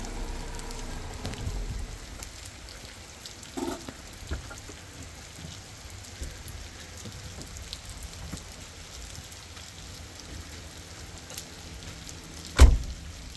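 Rain falling, a steady patter of drops, with two short knocks a few seconds in and one loud thump near the end.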